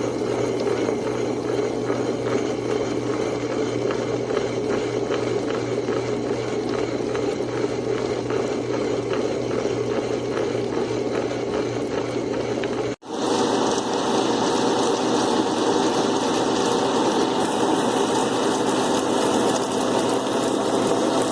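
Electric table-top wet grinder running, its motor giving a steady hum under a regular rattle from the turning drum. About 13 seconds in, the sound breaks off for an instant and comes back as a smoother churning run.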